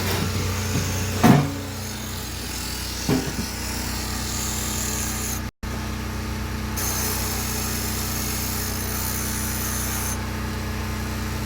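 A steady motor hum runs throughout, with two short knocks, one about a second in and one about three seconds in. The sound drops out for a moment near the middle.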